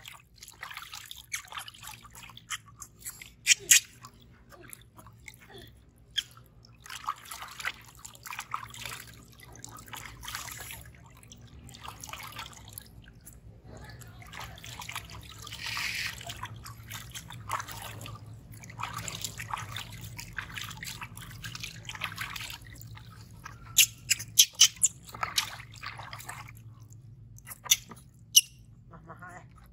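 Water splashing and dripping in a plastic bathtub as a baby monkey is washed by hand, with water poured over it and running off its fur back into the tub. A few sharp clicks or knocks stand out, the loudest about three seconds in and near the end.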